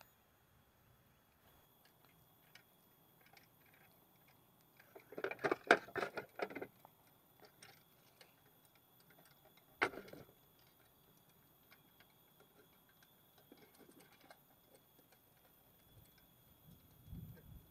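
A clear plastic compartment box being handled: a quick cluster of rattling clicks and knocks about five seconds in, then a single sharp click about ten seconds in.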